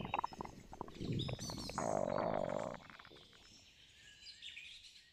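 Sound effect of a huge creature's deep belch trailing off, fading out about three seconds in, over faint forest ambience with birds chirping.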